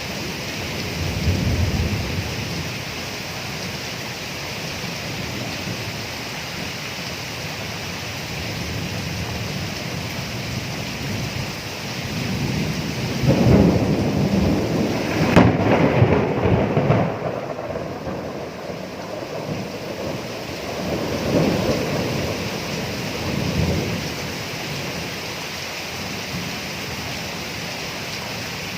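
Steady rain during a thunderstorm. There is a low rumble of thunder about a second in, a loud thunderclap rolling on for several seconds about halfway through, and two fainter rumbles near the end.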